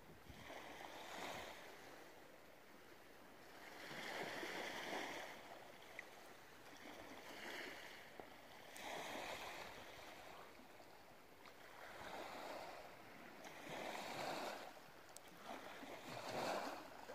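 Small waves washing onto the shore: a faint hiss that swells and fades every couple of seconds.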